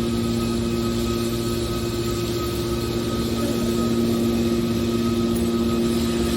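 Aluminum baler machine running, its hydraulic power unit giving a steady, even hum with a few held tones.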